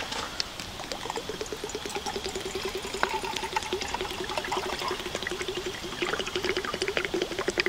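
Water pouring in a steady stream from the spout of an insulated plastic water jug into a metal camp mug. It begins about a second in.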